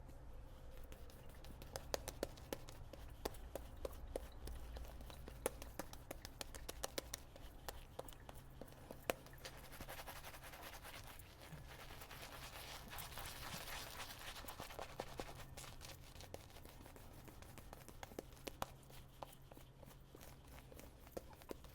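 Faint crackling scrapes of a double-edge safety razor cutting through lathered stubble, a long string of short strokes. About ten seconds in there is a softer, denser swishing stretch of several seconds.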